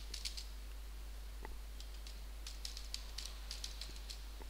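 Typing on a computer keyboard: a few keystrokes at the start, then a quick run of keystrokes from about halfway to near the end, over a steady low hum.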